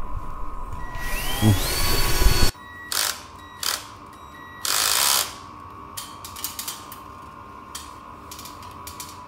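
Cordless drill fitted with a spade bit, run in a few short bursts, the first winding up in pitch, with light mechanical clicking between them.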